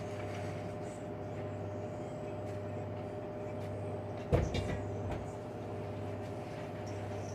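LG washing machine spinning a cotton load at high speed, a steady hum with a held tone. About four seconds in, a single sharp knock, followed by a couple of lighter knocks.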